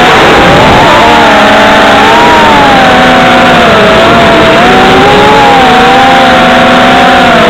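FPV racing quadcopter's electric motors and propellers whining loud and close, the pitch swinging up and down with the throttle.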